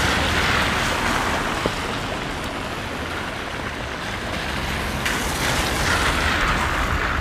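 Car traffic passing on a rain-wet road, tyres hissing on the water, swelling twice as cars go by.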